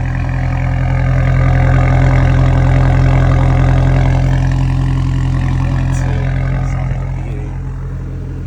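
Audi A5 (B8) S-line's turbocharged engine idling steadily, growing louder from about a second in and easing off again over the last few seconds.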